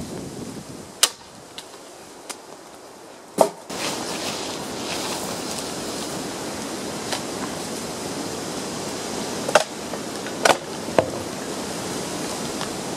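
Dry branches snapping as they are levered and broken in the fork of a tree trunk: a few sharp cracks of breaking wood, one about a second in, one about three and a half seconds in, and three in quick succession near the end. A steady rush of wind on the microphone sets in about four seconds in.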